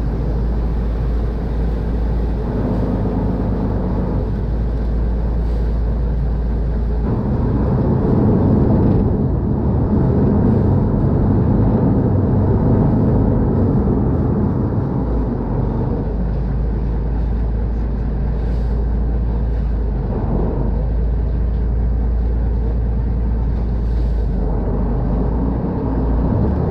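Khlong Saen Saep express boat's diesel engine running with water churning along the hull. The engine gets louder and rougher for several seconds in the middle, then settles to a lower, steady run as the boat comes alongside a pier.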